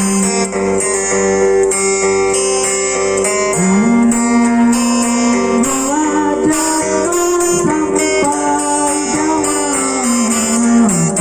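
Acoustic guitar playing a Lampung song, with a melody of long held notes that slide up and down in pitch from about four seconds in.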